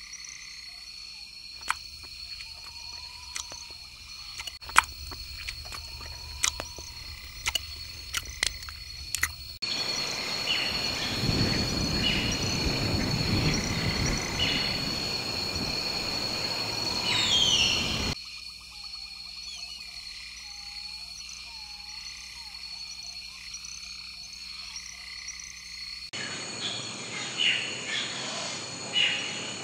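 Tropical forest ambience: frogs croaking over a steady high insect drone, with sharp clicks in the first third. A louder rushing noise takes over from about a third of the way in until past the middle. Near the end, short chirping calls come in.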